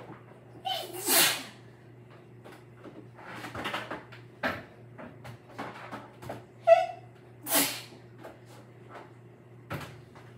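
A woman sneezing twice from an allergy: each sneeze is a short high-pitched 'ah' followed by a loud burst, one about a second in and the second about two-thirds of the way through. There are smaller breathy sniffs and small clicks between them.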